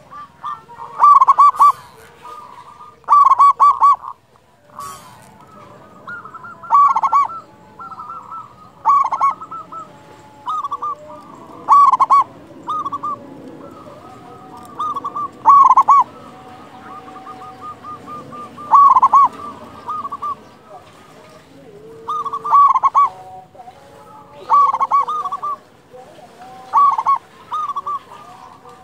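Local zebra dove (perkutut) cooing with a loud voice: short phrases of staccato, ringing coos repeated every two to three seconds, with fainter coos between them.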